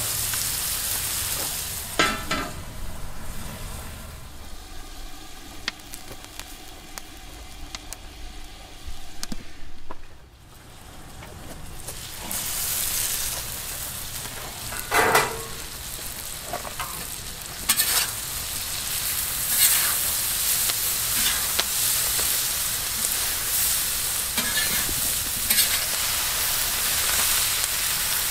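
Food sizzling in a hot pan while a utensil stirs and scrapes it, with a few sharp knocks against the pan. The sizzle drops away for a moment about ten seconds in, then builds again.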